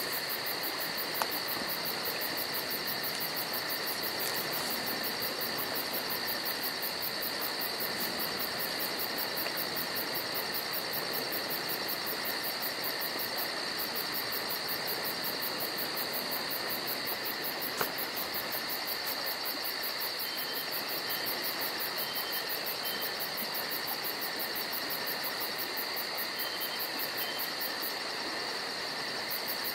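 Steady chorus of insects, crickets chirping in a fast, even pulse, unchanging throughout, with two faint clicks.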